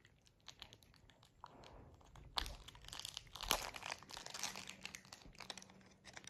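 Crinkling and crunching: a run of sharp crackles, densest and loudest in the middle, with a faint steady hum coming in after about four seconds.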